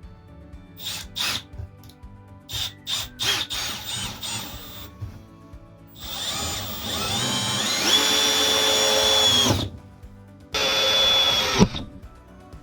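Milwaukee M18 cordless drill driving a screw: the motor winds up with a rising whine, runs steadily for about three and a half seconds and stops. About a second later it runs again briefly and ends with a sharp click. Before the first run there are short clicks and taps of handling.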